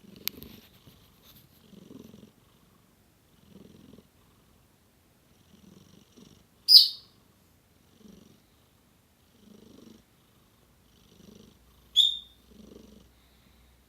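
Cat purr-snoring while asleep: a soft, low purr that comes in short bouts with each breath, about one every two seconds. Twice, about 7 and 12 seconds in, a short, sharp high-pitched sound is the loudest thing heard.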